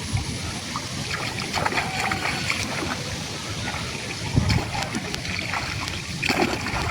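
Water splashing and trickling, with scattered small knocks and clicks.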